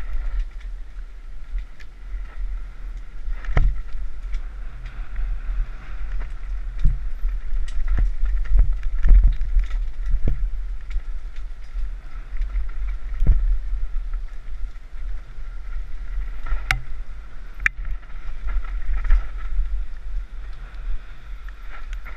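Mountain bike descending a rough trail filmed onboard: a steady low rumble of wind and jolts on the camera's microphone, with sharp knocks and rattles from the bike over rocks and roots.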